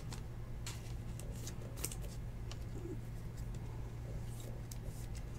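Faint rustling and light clicks of a trading card being handled and slid into a clear rigid plastic top loader, over a steady low hum.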